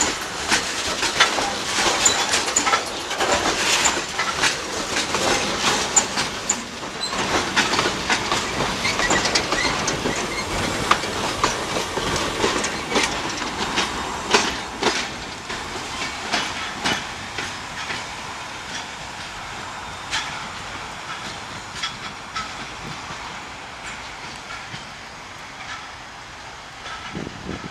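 Freight wagons of a loaded coal train rolling past, wheels clacking and knocking over rail joints, gradually fading as the train draws away.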